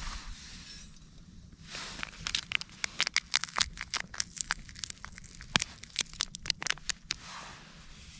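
Irregular crinkling and crackling, a quick string of sharp clicks of varying loudness lasting about five seconds, from something crinkly being handled.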